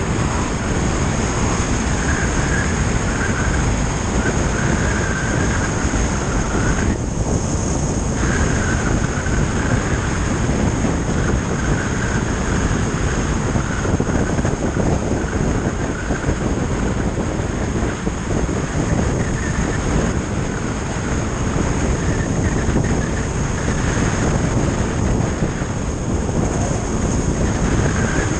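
Motorcycle cruising steadily on the open road: a constant rush of wind, engine and tyre noise, with a thin steady high whine over it.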